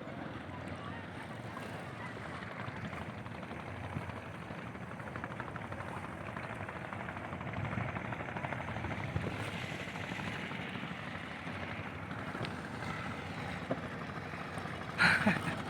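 Boat engine running steadily at sea, with a short loud knock near the end.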